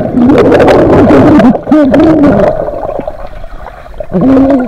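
Pool water heard from underwater just after a jump-in: a rush of bubbles and churning water, with a muffled voice sounding through the water, once early on and again briefly near the end.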